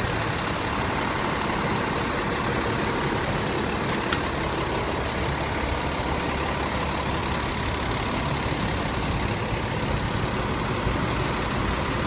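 Fire engine's diesel engine running steadily at idle, heard close alongside the truck. There is a single sharp click about four seconds in.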